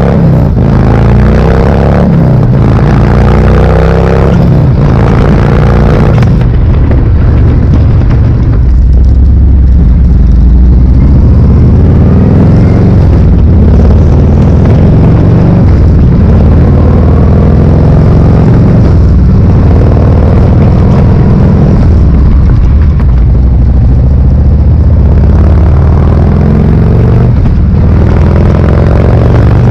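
Harley-Davidson Milwaukee-Eight V-twin exhaust note through 4.5-inch Magnaflow Hitman slip-on mufflers, accelerating on the road. The pitch rises in a few sweeps through the gears in the first several seconds, then settles into a steadier run at speed.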